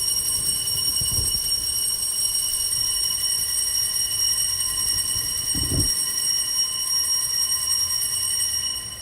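Altar bells rung continuously at the consecration as the host is elevated, a steady bright ringing that lasts about nine seconds and stops at the end. Two soft low thumps come through under it.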